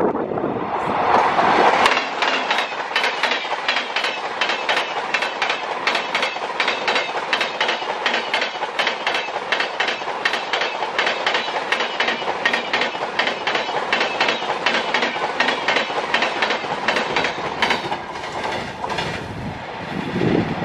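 An Indian Railways express of LHB coaches, hauled by an electric locomotive, passing close by at speed: a loud rush with a rapid, regular clickety-clack of wheels over rail joints. The sound eases near the end as the last coach goes by.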